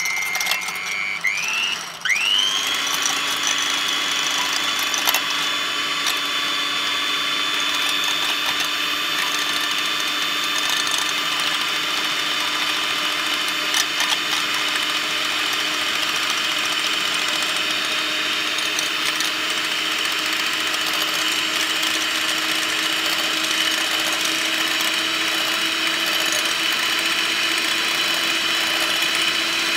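Electric hand mixer whipping egg whites in a glass bowl. It runs as a steady motor whine, briefly dips about two seconds in and spins back up to a higher speed. Its pitch then creeps slowly upward while the whites turn foamy, with a few light ticks of the beaters against the glass.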